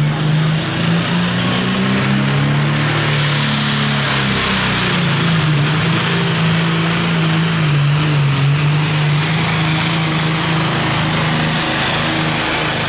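Limited Pro Stock John Deere pulling tractor's turbocharged diesel running flat out under full load as it drags the pulling sled. A high turbocharger whine rises in pitch over the first three seconds.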